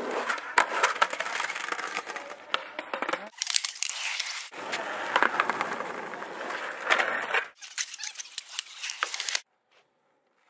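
Skateboard wheels rolling over rough asphalt, a gritty rolling noise with sharp clicks and knocks from the board, in two long stretches. The sound cuts off suddenly about nine seconds in.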